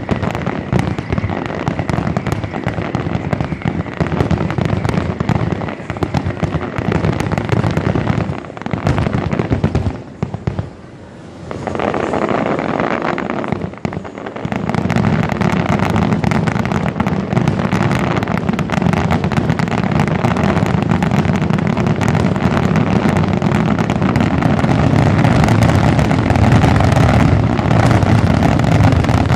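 Fireworks display: a dense, rapid barrage of bangs and crackling explosions. It thins out briefly about ten seconds in, then comes back louder and denser for the rest.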